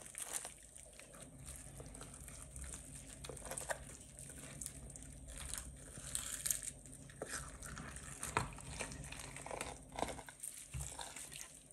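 Faint, irregular wet handling noises from hands parting the belly of a raw thick-lipped grey mullet and working its roe out of the cavity on a wooden chopping board.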